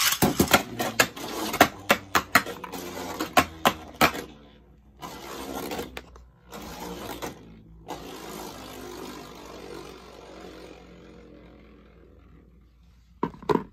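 A Beyblade spinning top launched into a plastic stadium, clattering against the walls with quick sharp knocks for about four seconds, then whirring steadily on the stadium floor and slowly fading as it loses spin. Two short knocks come near the end.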